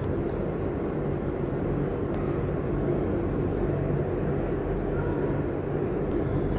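A steady low rumble with a faint hum running under it, unchanging throughout.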